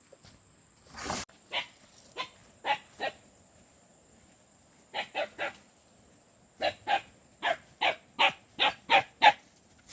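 A dog barking in three runs of short, sharp barks, the last run the loudest and quickest. There is a knock about a second in.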